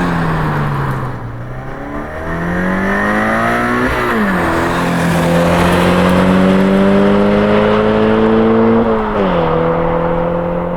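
Subaru BRZ / Scion FR-S flat-four engine through an Invidia Q300 cat-back exhaust, driving under acceleration. The note eases off briefly, then climbs and drops sharply at upshifts about four and nine seconds in.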